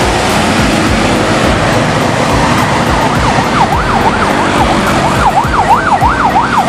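Coach engine and road traffic noise as a bus pulls away, joined about three seconds in by an electronic siren sweeping up and down, at first about twice a second and then faster.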